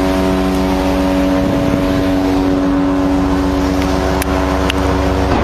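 A ship's horn sounding one long, steady blast that cuts off near the end, over a steady low rumble.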